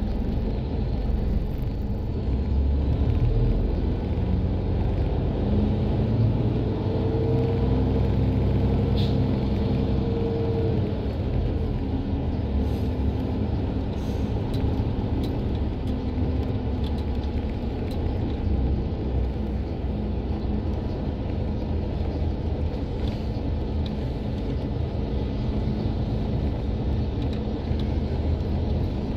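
City bus heard from inside the cabin while driving: a steady low engine and road rumble. The engine note rises and holds for a few seconds near the middle, with a few faint rattles and clicks.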